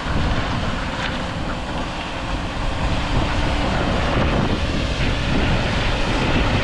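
Iveco Strator bullnose lorry, pulling a loaded low-loader trailer, running on its diesel engine and getting louder as it turns onto the lane and comes closer. Wind buffets the microphone.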